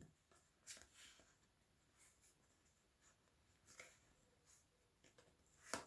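Near silence: room tone with a few faint, short rustles and taps, the loudest just before the end.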